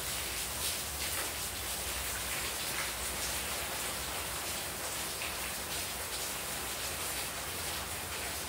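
Heavy rain falling steadily into a tiled courtyard, an even hiss with scattered splashes, and water pouring off the roof edge.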